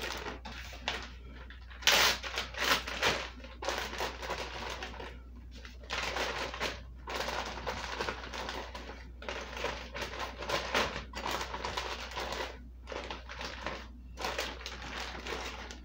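Plastic zip-top freezer bag crinkling and rustling as handfuls of sliced bell peppers are put into it, in irregular bursts, loudest about two seconds in.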